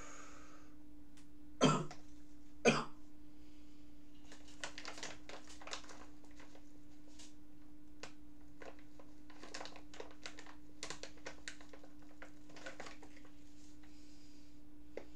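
Two loud coughs from a man, about a second apart, followed by a run of faint scattered clicks and taps.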